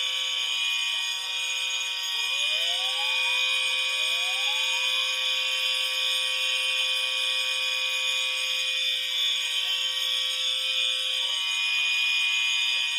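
Several fire alarm notification appliances sounding continuously together: a steady low horn tone under a shrill high electronic tone. Two rising sweeps from another device come in about two and four seconds in.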